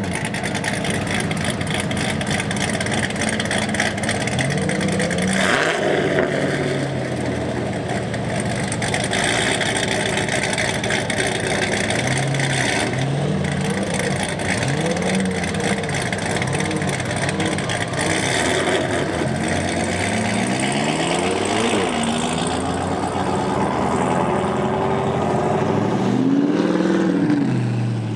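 Performance car engines idling at a loud, steady level, among them a twin-turbo Lamborghini Huracán V10. About half a dozen short throttle blips rise and fall in pitch over the steady running.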